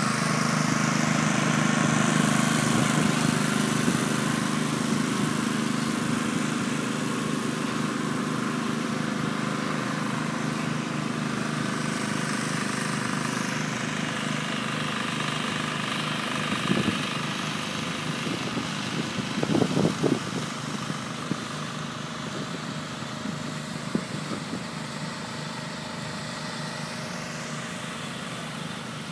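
A small motor running steadily with a constant hum that eases off slightly over time. A few short knocks come through a little past halfway.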